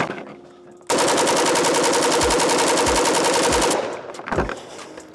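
Pioneer Arms 5.56 AK Sporter firing one long full-auto burst of about three seconds, at about ten shots a second, starting about a second in: a 30-round magazine emptied in one go during a barrel-meltdown test, with the rifle already hot.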